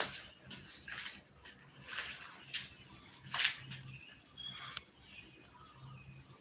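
A steady, high-pitched insect drone, like crickets or cicadas, with a few faint short taps; the clearest tap comes about three and a half seconds in.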